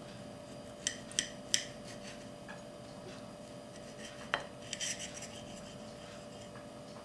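Kitchen knife slicing a tomato on a ceramic plate. The blade knocks on the plate in three quick clicks about a second in, clicks once more past four seconds, then scrapes briefly.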